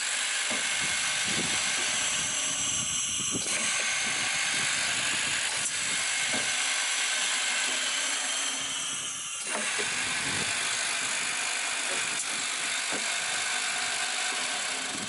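A GOMAD 19 nineteen-spindle boring machine running, making a steady hissing whir. The sound shifts twice, about three and a half and nine and a half seconds in.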